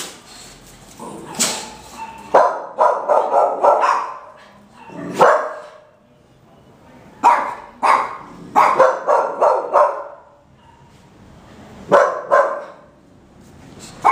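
Dog barking, in single barks and in quick runs of five or six.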